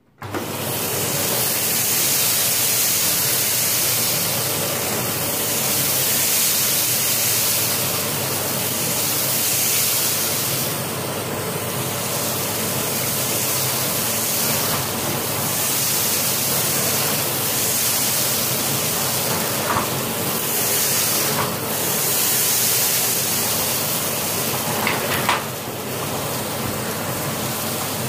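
Philips PowerPro Compact FC9331/09 900-watt canister vacuum cleaner switched on and running steadily at suction, its nozzle drawn back and forth over a carpet to pick up scattered rice. The steady rush swells and dips with the strokes, with a few short clicks near the end.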